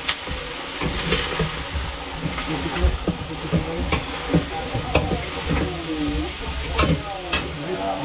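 Food sizzling in a pan while it is stirred, with the cooking utensil knocking against the pan several times.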